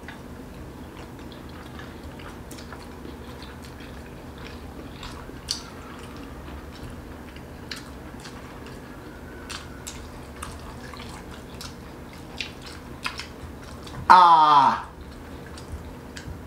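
Closed-mouth chewing of whole steamed momos: faint scattered mouth clicks over a steady low room hum. About fourteen seconds in comes a loud wordless vocal sound, under a second long, that rises in pitch.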